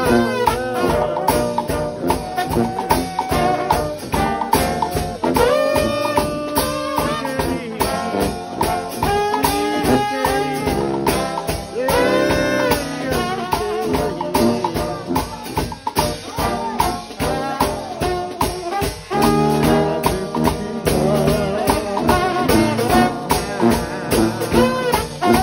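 United House of Prayer trombone shout band playing gospel: many trombones sounding together with sliding, bending notes over a steady beat on a drum kit.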